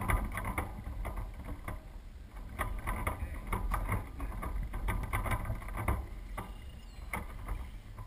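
Handling noise on a Soling 1 meter radio-controlled model sailboat: irregular knocks, clicks and rubs carried through the hull to the deck-mounted camera, over a low rumble. The knocks thin out near the end.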